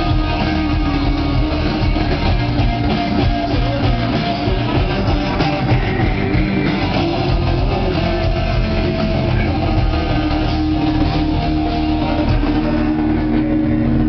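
A rock band playing live, loud and steady, with guitars and drums.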